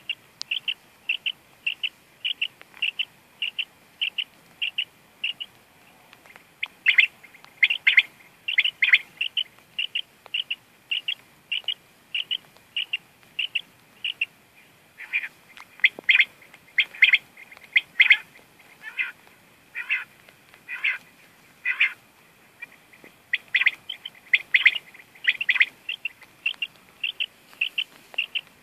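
A hunting dog's beeper collar sounding its point alarm: short high beeps, about two a second, repeating steadily and rising and falling in loudness. The alarm signals that the setter is holding a point.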